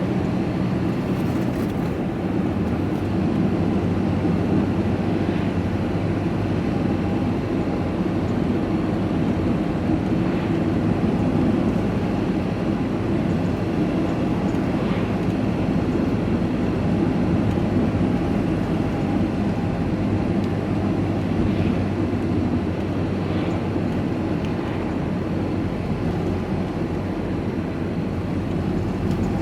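Steady engine drone and road noise inside a moving truck's cab, holding an even pace throughout.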